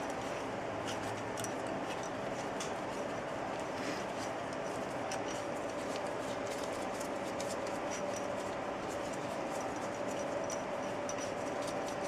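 A cleaning rod with a dry patch being worked through a Glock 22 pistol barrel to wipe out soaked solvent: scattered small clicks and scrapes over a steady background hum.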